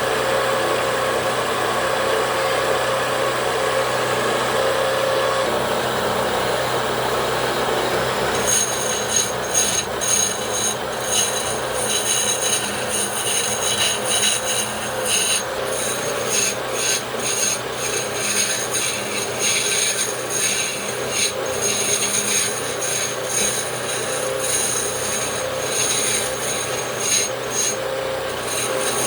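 Wood lathe running steadily with its motor hum. From about eight seconds in, a turning tool scrapes against the spinning wooden table leg in irregular strokes.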